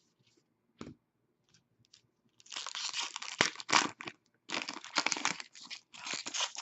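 A trading-card pack wrapper being torn open and crinkled in the hands, in three spells of dense crackling starting about two and a half seconds in, after a single small click near the first second.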